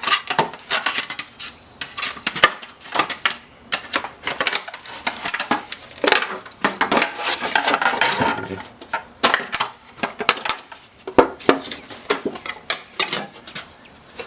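Irregular metallic clinks, clatters and scrapes as an electric scooter's aluminum deck plate and other metal parts are worked free and handled during scrapping.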